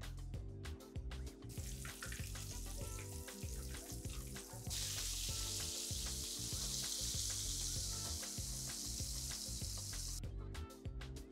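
Protein-powder-coated chicken pieces frying in hot oil in a pan: a steady sizzle that comes in faintly, grows much louder about five seconds in and stops about ten seconds in. Background music with a steady beat plays throughout.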